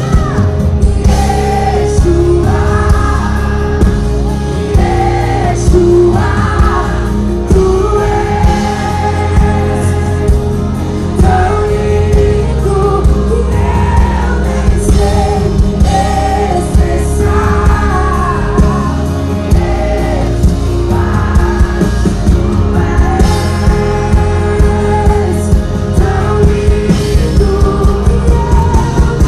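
Live worship band playing loudly through a concert sound system: a lead singer's voice over drums, guitar and a heavy bass line with a steady beat, heard from within the audience.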